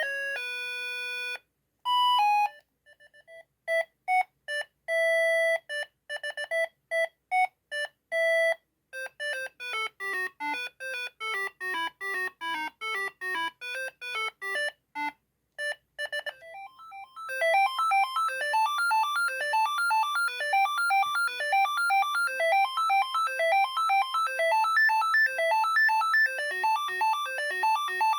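Siemens ME45 mobile phone ringtones playing one after another: several short electronic tunes of clean beeping notes, with brief pauses between them. The first is a few held tones, then a rhythmic run of short beeps, then quick rising and falling arpeggios, and for the last ten seconds or so a fast, busy melody.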